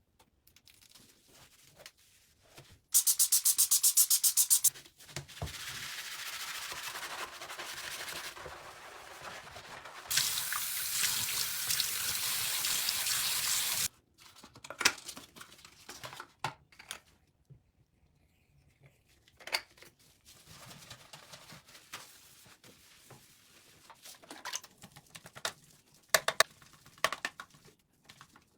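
Household cleaning sounds. A loud, rapid, even pulsing lasts under two seconds. Then water runs from a tap for about ten seconds, growing louder partway through before it stops abruptly. Scattered taps and clicks of objects being handled follow.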